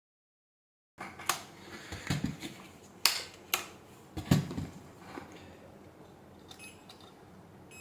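Handling noise: after a second of silence, about seven sharp clicks and knocks at uneven spacing from small plastic and metal parts being handled, fading to faint room tone after about five seconds.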